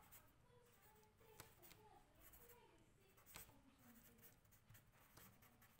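Faint scratching of a felt-tip marker writing on paper.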